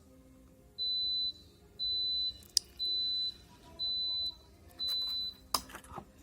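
Digivice's piezo speaker beeping five times, a high steady tone about once a second. A sharp click falls between the second and third beeps, and a quick cluster of clicks follows the last beep.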